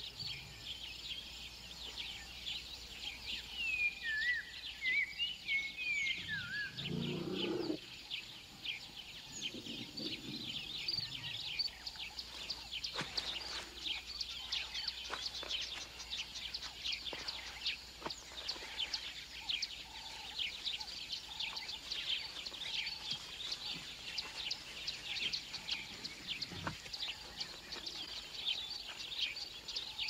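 Savanna ambience: a dense chorus of high bird chirps throughout, with a few wavering whistled bird calls about four to six seconds in. Two low animal calls come around seven and ten seconds in.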